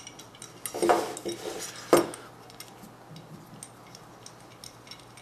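Small metal parts of a Weber 42 DCNF carburettor clicking and clinking as they are handled and fitted, with the loudest sharp knock about two seconds in.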